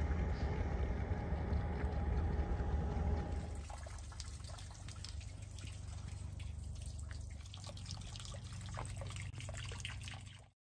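Water trickling and lapping over a low steady rumble. About three and a half seconds in it drops to a quieter outdoor background with scattered small clicks, and it cuts off just before the end.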